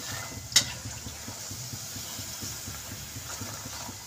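Hot oil sizzling steadily around salonis (namak pare) deep-frying in a kadhai, the pieces browned and done, with one sharp clink of a metal slotted spoon against the pan about half a second in.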